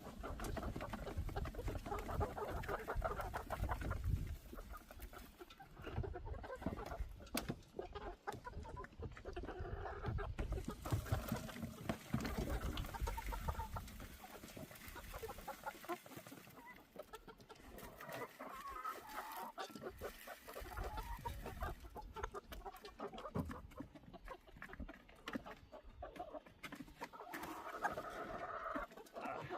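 Chickens clucking and chattering almost continuously, mixed with scattered sharp knocks and clicks.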